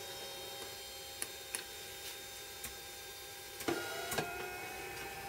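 Low electric hum of a vinyl cutter with a few faint ticks. Two short knocks come about three and a half and four seconds in, after which a new steady tone carries on, as the knife carriage is stepped with the arrow keys to line the knife up over a registration mark.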